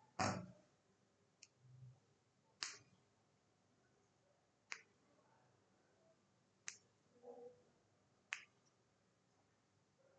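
Near silence broken by about six short, sharp clicks, one every second or two.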